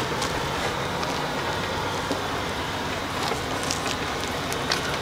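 Steady crackling noise with scattered small clicks: the tyres of a light solar car rolling over the ground as it is pushed by hand.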